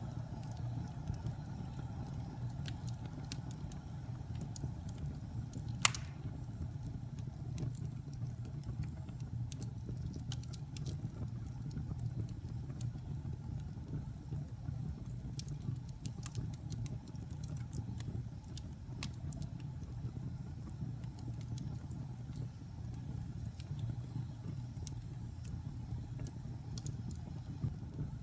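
Wood fire burning in a fireplace: a steady low rumble with scattered small crackles, and one loud pop about six seconds in.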